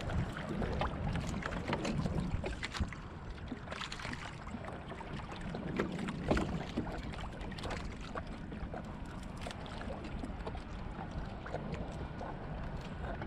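Water splashing and slapping against a small fishing boat's hull while under way, with wind buffeting the microphone.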